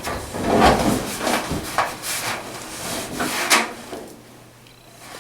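Estate dryer's drum being worked back into the cabinet: a run of irregular scraping, rubbing and knocking, easing off after about four seconds.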